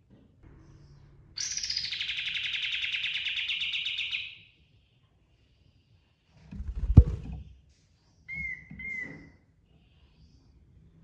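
Kapas tembak bird, a bulbul, giving a fast rolling trill for about three seconds, then two short whistled notes. A sharp thump about seven seconds in is the loudest sound.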